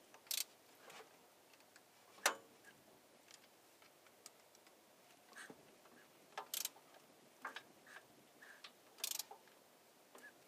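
Irregular light metallic clicks and taps a few seconds apart, the sharpest about two seconds in, from a thin rod held down the injector bore of a Cummins 5.9 12-valve diesel while feeling for the piston's top dead centre.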